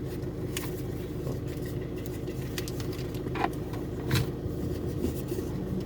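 A vehicle engine idling steadily, with a few faint clicks over it.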